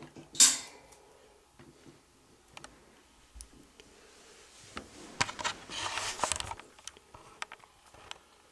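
Chinchillas moving about a wire cage, with scattered clicks and knocks on the metal shelves and bars. There is a sharp rattle about half a second in, and a busier stretch of scrabbling and rattling clicks a little past the middle.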